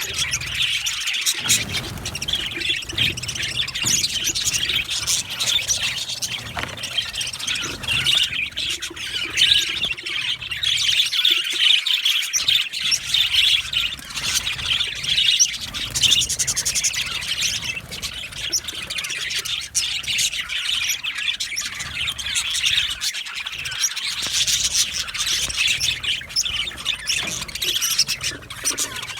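A flock of budgerigars chirping and chattering together, a dense, continuous mix of many overlapping short calls and warbles.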